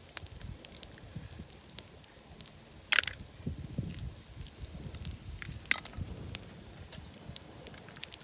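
A cooking fire crackling, with scattered sharp pops throughout and two louder cracks, about three seconds in and near six seconds.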